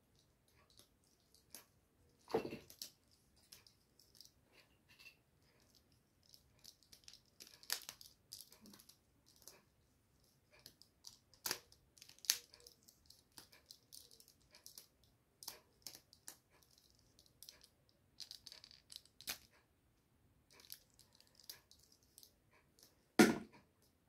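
Plastic fidget toy, a pink-and-white twisting snake puzzle, being turned and handled: scattered soft clicks and rattles, with sharper clicks about two seconds in and near the end.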